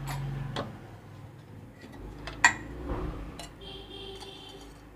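A few sharp metallic clinks and ticks of steel kitchen utensils, the loudest about two and a half seconds in, with a short high-pitched tone near the end.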